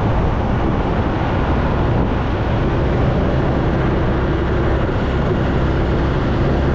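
Steady wind rush and road noise from a motor scooter ridden at about 30 km/h, with the scooter's engine drone underneath. A faint steady hum comes in partway through.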